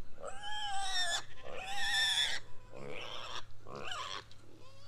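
Pigs squealing: two long, arching squeals in the first couple of seconds, then two shorter calls, the last one rising.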